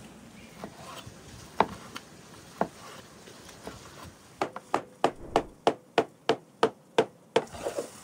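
A steel cleaver chopping cooked lamb on a wooden cutting board: a rapid run of about a dozen sharp strikes, about three a second, starting about halfway. Two single knocks come before it.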